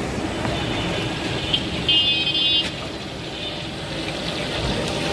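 Busy street traffic noise over chicken kebab pieces sizzling as they deep-fry in oil. About two seconds in, a brief shrill toot sounds for under a second.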